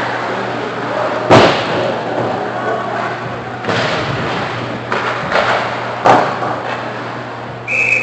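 Ice hockey play in a rink: several sharp knocks and thuds of puck, sticks and players against the boards, the loudest about a second in, over a steady arena hum. A referee's whistle starts just before the end.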